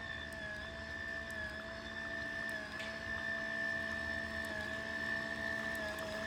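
Toy RC boat's small electric motor whining steadily, its pitch dipping slightly every second or so.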